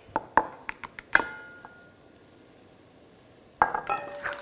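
A utensil clicking and clinking against a bowl as starch is mixed with cold cream. One louder clink rings briefly about a second in, it goes quiet for a couple of seconds, then the clatter starts again suddenly near the end.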